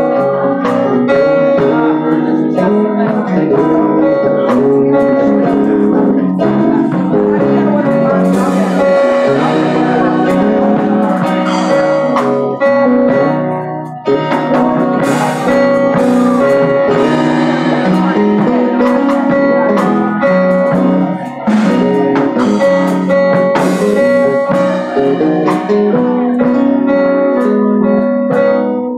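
Live church band playing, led by guitar with keyboard, dense and unbroken, with a few cymbal crashes.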